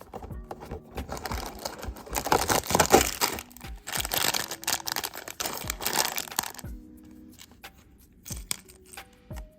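Lego advent calendar packaging crinkling and tearing as it is opened, a dense crackle from about a second in that stops near 7 seconds, over soft background music.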